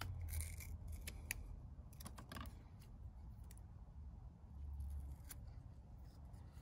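Scissors snipping through a strip of Velcro: faint, scattered snips and clicks, over a steady low rumble.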